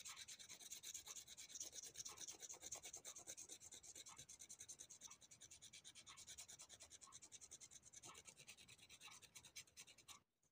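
Faint knife blade scraping the brown skin off a fresh dandelion root in rapid, short, even strokes, stopping just before the end.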